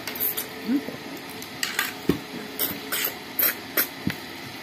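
Close-up eating sounds: wet mouth smacks and chewing as a woman eats rice by hand, a string of short sharp smacks coming irregularly, a few each second.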